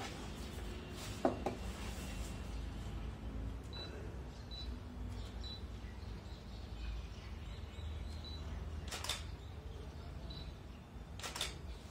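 A Canon EOS 1300D DSLR and a mug being handled on a desk: a knock about a second in, then two sharp shutter clicks from the camera, one about 9 seconds in and one near the end. A few faint short high beeps and a steady low hum lie under it.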